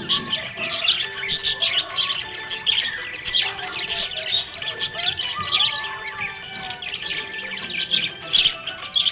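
Budgerigars chirping and twittering in quick, dense bursts, over background music with long sustained notes.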